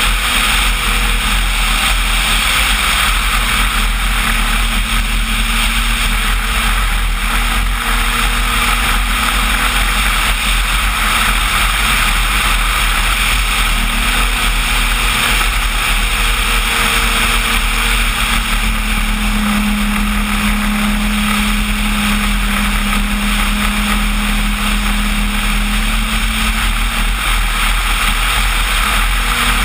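Onboard sound of a radio-controlled Cessna 185 floatplane model in flight: its electric motor and propeller run steadily under a constant rush of air. The motor's pitch drops and rises a few times as the throttle changes.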